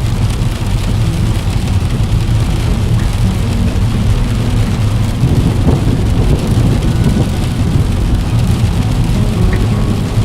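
Heavy rain against a window, with the deep low rumble of a thunderstorm under it.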